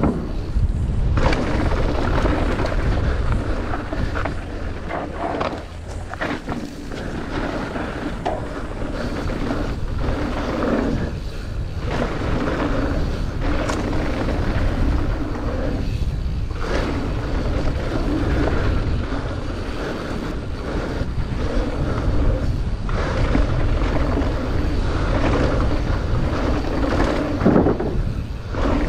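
Mountain bike ridden down a dirt jump line: a steady low rush of wind and tyre noise on dirt, with a knock now and then.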